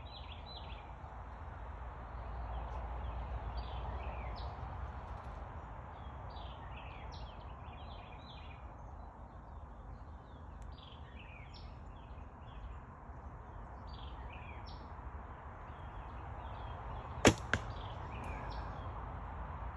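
Quiet outdoor background with small bird chirps, then near the end a 1959 Bear Kodiak recurve bow is shot: a loud sharp snap of the string, followed about a third of a second later by a softer knock of the arrow striking the foam 3D bear target.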